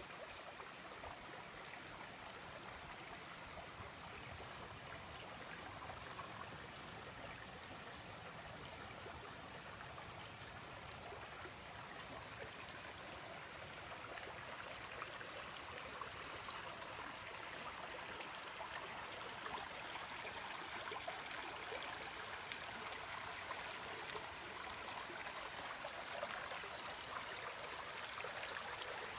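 Shallow creek water running over rocks in a steady rush, growing louder over the second half.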